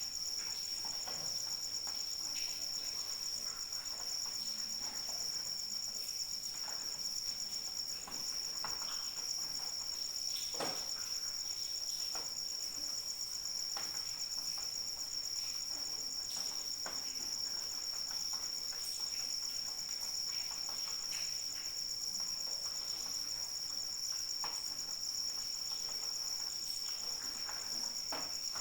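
Crickets trilling in a steady, unbroken chorus of two high-pitched tones, with scattered light taps of raindrops dripping at irregular moments.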